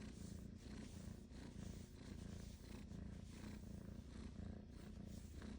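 Domestic cat purring close by while being petted, a steady low rumble that swells and eases with each breath in and out.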